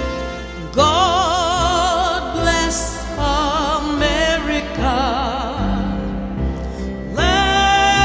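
A woman singing into a microphone with a wide vibrato, over instrumental accompaniment. The voice comes in about a second in with long held notes, and a new sustained note begins near the end.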